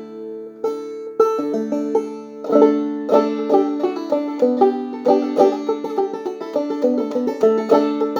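Banjo played clawhammer style: a few separate strummed chords, then a steady rhythmic tune from about two and a half seconds in. The tone is still a little mellow, with the head not yet as tight and sharp as the player likes.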